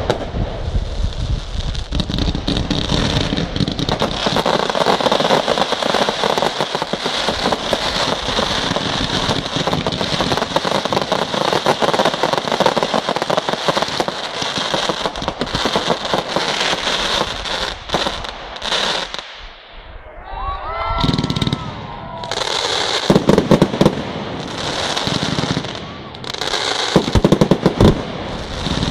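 Firework display: dense, continuous crackling and popping of shells and cakes bursting in the air. The crackling eases briefly about twenty seconds in, then sharp loud bangs come back.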